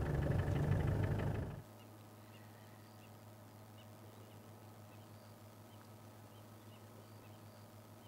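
Game-drive vehicle engine idling, cutting out abruptly about a second and a half in. After that only a faint low hum and a few faint, high, short chirps remain.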